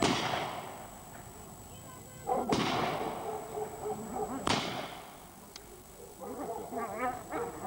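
Three loud sharp cracks about two seconds apart, each ringing out briefly: at the start, about two and a half seconds in, and about four and a half seconds in.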